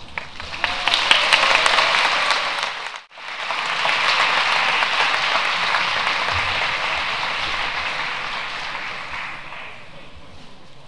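Audience applauding, a dense crackle of many hands clapping. It breaks off abruptly for a moment about three seconds in, resumes, and fades away near the end.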